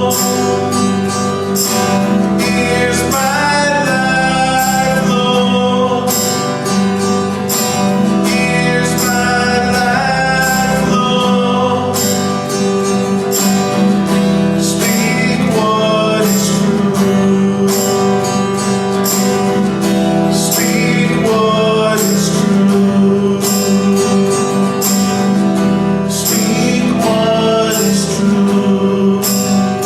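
Music: a song with singing over guitar, playing steadily throughout.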